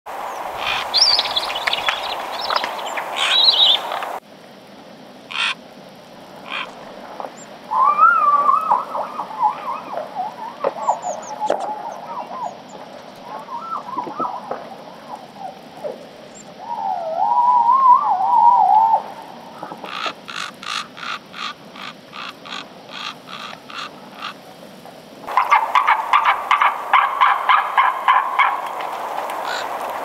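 White-tailed eagles calling: yelping calls that waver in pitch, and rapid series of short, sharp notes at about three to four a second, in several bouts.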